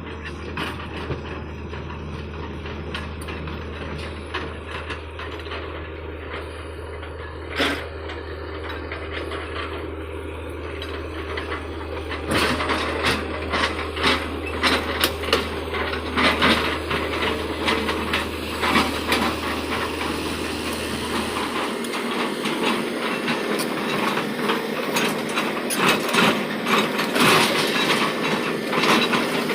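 Hitachi excavator at work: engine running, with a rapid clanking and rattling of metal that sets in about twelve seconds in. A low steady hum cuts off about two-thirds of the way through.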